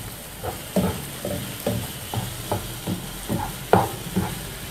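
A spatula stirring sliced chicken, green peppers and onions in a non-stick frying pan: a quick, uneven run of scrapes and taps against the pan, the loudest a little before the end, over a light sizzle of the frying food.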